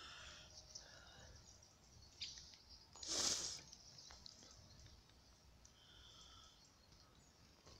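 Quiet outdoor ambience with faint, short bird chirps, and a brief rush of noise about three seconds in.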